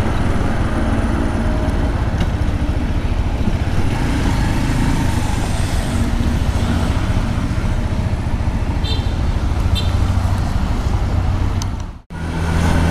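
Motorcycle engine running during a slow ride through city traffic, with wind and road noise around it. The sound cuts out briefly near the end, then an engine runs on at a steady, even pitch.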